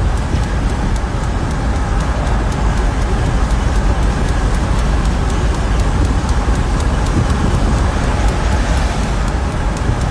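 Steady low rumble of a car driving along: engine and road noise.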